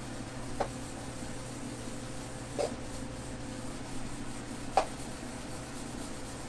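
Faint steady hum with three short clicks about two seconds apart, the last one the loudest.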